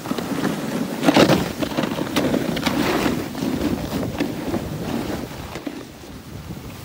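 Edges scraping and hissing over packed snow on a downhill run, in surges, the loudest about a second in, with wind rushing over the microphone.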